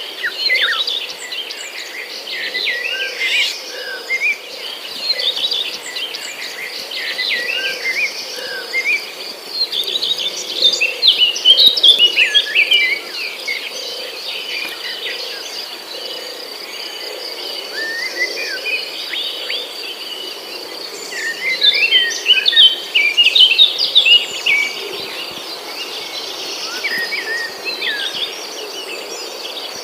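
Birds chirping and calling in quick clusters over a steady, high-pitched insect drone. The chirping comes in louder flurries about ten seconds in and again a little past twenty seconds.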